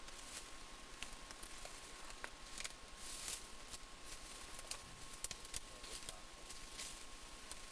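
Dry leaf litter and twigs crackling and rustling underfoot in irregular light snaps, with a faint steady high tone throughout.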